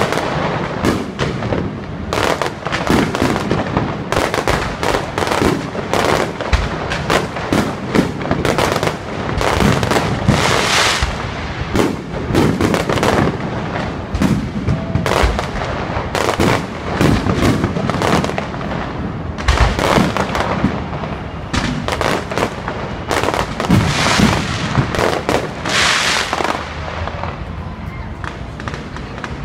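Fireworks display: a steady barrage of aerial shells bursting, many sharp bangs and crackles close together with no break.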